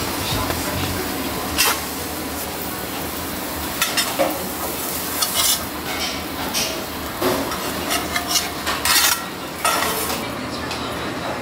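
Food sizzling on a steel flat-top griddle while a metal spatula scrapes and clacks against the griddle surface again and again. The sizzle fades near the end.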